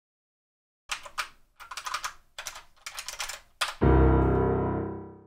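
Typing on a computer keyboard, a quick run of key clicks starting about a second in. Then a recorded piano sample plays through the computer, one struck piano sound that starts suddenly and rings away to nothing.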